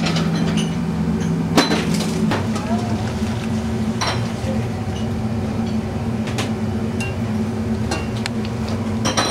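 Steady commercial-kitchen drone with sharp metal knocks and clinks from noodle strainers, pots and bowls, the loudest knock about a second and a half in.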